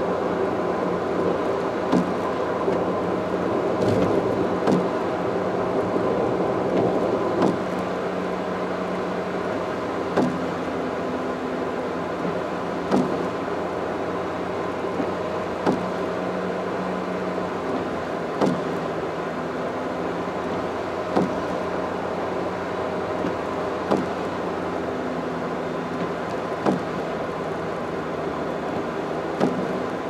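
Car driving at highway speed, heard from inside the cabin: steady tyre and road noise with a constant engine and drivetrain hum. A short, light knock comes at an even beat about every three seconds.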